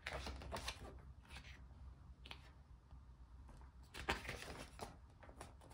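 Pages of a large glossy photo booklet being turned and handled, giving several soft paper rustles and swishes and a single sharp tick about two seconds in.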